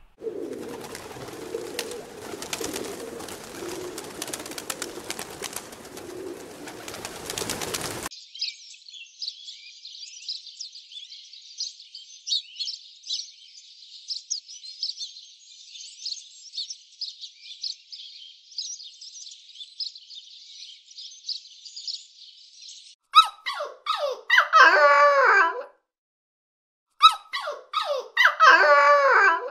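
A flock of small birds chirping in a dense, high twittering for about a quarter of a minute, after a noisy stretch with clicks at the start. Near the end come two long, wavering animal cries, each about two seconds.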